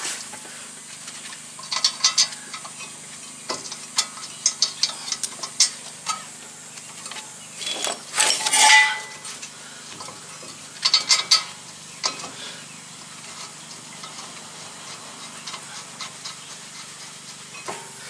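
Metal clinking and scraping as a disc-brake caliper is worked back into place over new brake pads, in irregular clusters of sharp clicks, with a longer scrape a little past the middle.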